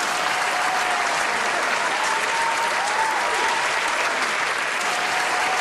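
Crowd applause sound effect, steady dense clapping with a few faint whistles, cut in abruptly.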